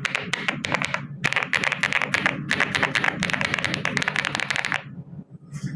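Elecfox PMO Wave 75 aluminium mechanical keyboard being typed on fast: quick runs of key clacks, with a short break about a second in, stopping about a second before the end.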